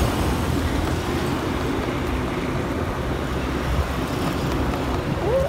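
Steady rumble of a vehicle in motion with road noise, heard while travelling along a street.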